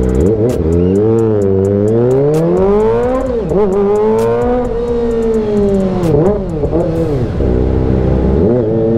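Kawasaki ZX-25R's inline-four engine through an AR full-system aftermarket exhaust, revving up through the gears as the bike pulls away. It then slows, with quick auto-blipped throttle spikes on the downshifts.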